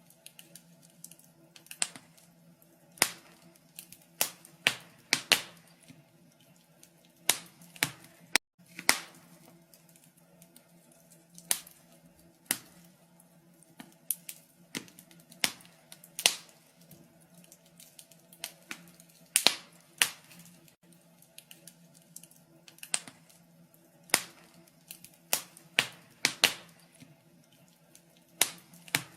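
Wood fire crackling in a fireplace: irregular sharp pops and snaps about once a second, over a faint steady low hum.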